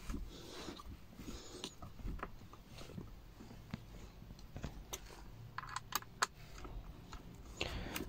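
Light clicks, taps and scraping from hands handling the plastic centre armrest mechanism of a Kia Cee'd, its latch pins and rods, with a quick cluster of sharper clicks about two-thirds of the way through.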